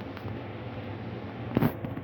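Steady low room hum, with one sharp click or knock about a second and a half in.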